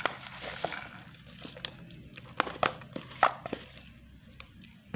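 Wooden spatula scraping crumbled palm sugar out of a plastic bowl into a non-stick pan: soft scrapes and a string of sharp taps, the loudest a little past the middle.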